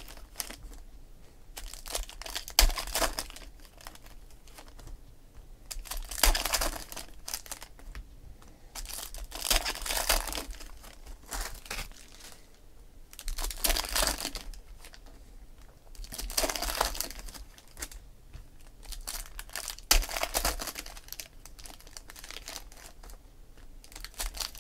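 Foil trading-card packs crinkling and tearing as they are opened by hand, with cards rustling and sliding against each other. It comes in short bursts every few seconds over quieter handling.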